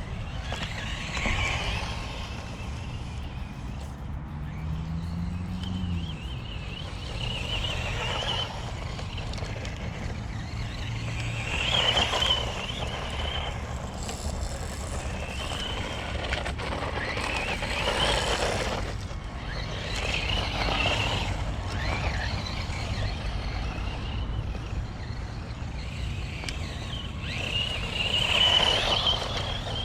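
Electric motor of a 1/10 scale off-road RC truck whining in short surges every few seconds as it accelerates on runs, over a steady low rumble.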